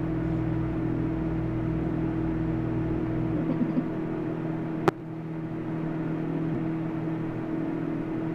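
Microwave oven running with a steady hum while tinfoil inside arcs, giving a few faint crackles and one sharp snap about five seconds in. A deeper rumble under the hum drops away about three and a half seconds in.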